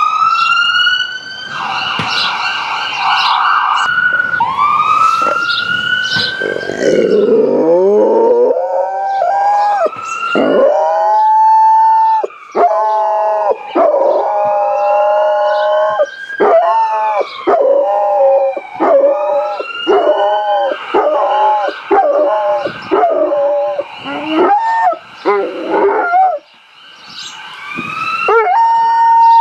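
An ambulance siren sound effect wails up and down through a phone's speaker, and a Rottweiler howls along with it. From several seconds in, the howls come over and over, each rising and falling in pitch.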